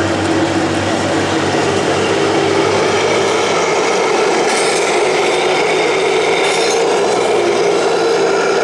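Electric drive motors, gearboxes and tracks of 1/16-scale RC tanks running: a steady grinding whine with a rasping rattle.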